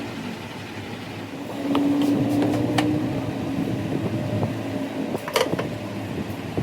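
A workshop machine's motor hums steadily, getting louder about two seconds in, with a few sharp metallic clicks and a stronger knock near the end.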